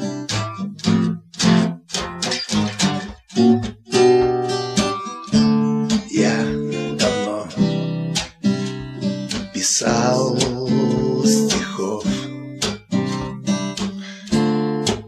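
Acoustic guitar strummed in a steady rhythm, with a voice singing a short melodic line a couple of times over it.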